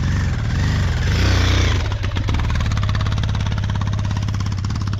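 Motorcycle engine running while riding, its pitch rising and falling for about the first two seconds, then settling into a steady, even putter at low speed.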